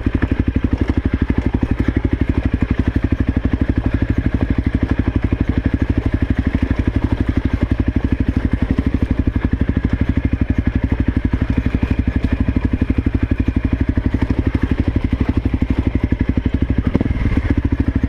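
Honda CRF250L's single-cylinder four-stroke engine running at low, steady revs as the dirt bike picks its way over rocky trail, with a knock near the end.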